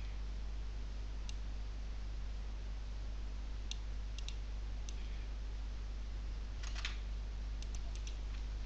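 A steady low electrical hum with scattered faint, sharp clicks: single ones, a few in quick succession about four seconds in, and a short cluster near the end.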